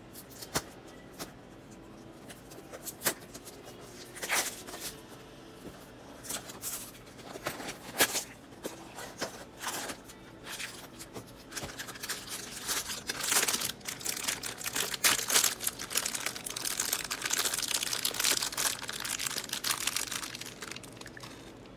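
Blind-box packaging being opened by hand: a cardboard box is torn open and the foil bag inside is crinkled and ripped to free a small vinyl figure. Scattered crackles and short tears come first, then dense continuous crinkling through most of the second half.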